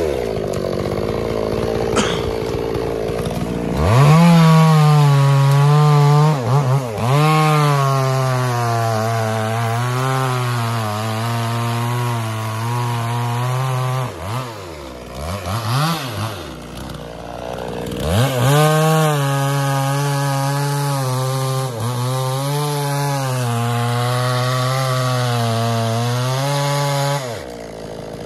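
Two-stroke chainsaw at full throttle cutting wood in two long cuts, the engine pitch sagging and recovering under load. Between the cuts the revs drop with a few throttle blips, and near the end the saw falls back to idle.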